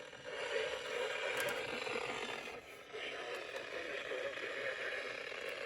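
Midland WR300 weather radio's speaker playing a weak NOAA Weather Radio signal on channel 2: mostly static and hiss, with the broadcast only partly coming through, a sign of marginal reception.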